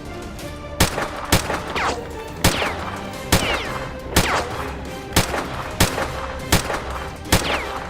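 Gunshot sound effects over background music: about nine single shots at uneven intervals, several followed by a short falling whistle.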